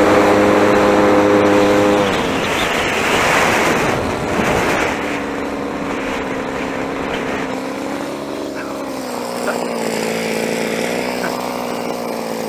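49cc two-stroke pocket bike engine on a bicycle running hard under load up a hill. About two seconds in its note drops lower and then wavers up and down, with wind and road noise.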